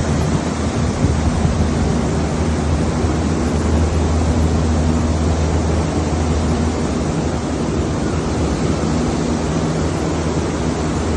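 Cooling tower running: a steady rush like falling water, with a low steady hum underneath.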